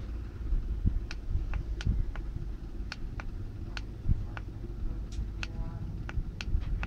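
Irregular light ticks and clicks, about two a second, over a low rumbling handling noise, as a plastic electric mosquito swatter handle is gripped and turned right against the microphone.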